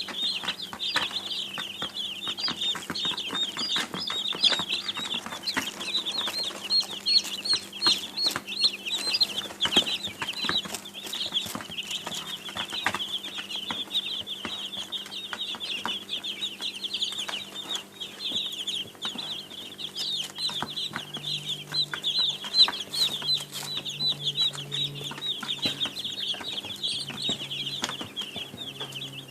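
A group of baby chicks peeping continuously, many short high-pitched cheeps overlapping without pause, with a faint steady hum underneath.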